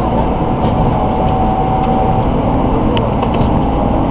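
Tokaido Shinkansen 300 series train running, heard from inside: a steady low rumble with faint, even tones from the drive.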